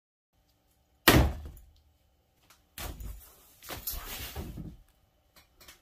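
A single sharp thump about a second in, dying away quickly, followed by a couple of seconds of irregular rustling and handling noise.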